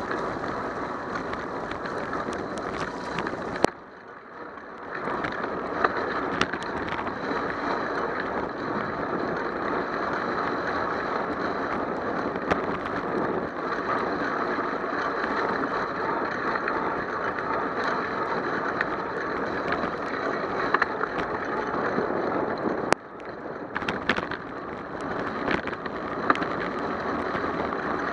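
Steady rushing noise of a bicycle riding on a wet road: tyre hiss and wind on the bike-mounted camera, with scattered clicks and rattles from the bike. The noise drops away suddenly about four seconds in and again near the end, then builds back up.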